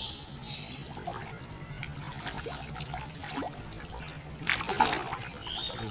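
Pond water trickling and splashing at the bank as a fishing line is handled, with a louder splash about four and a half seconds in, over a steady low hum.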